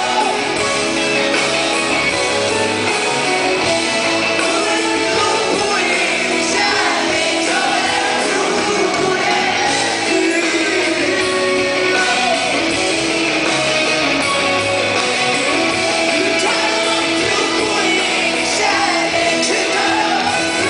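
Live rock band playing loud and steady, a male singer singing over electric guitars, as heard from within the audience.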